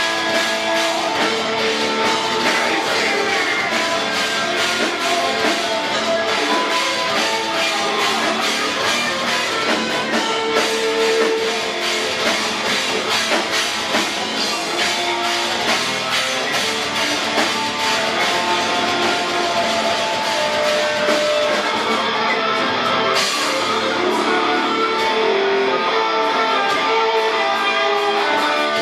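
Metal band playing live: distorted electric guitars over a drum kit keeping a steady, driving beat.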